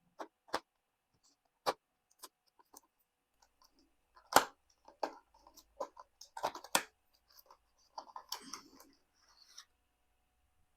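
A WD Green NVMe SSD's retail packaging being opened by hand: scattered clicks and taps, the loudest about four seconds in, and a brief rustle around eight seconds in.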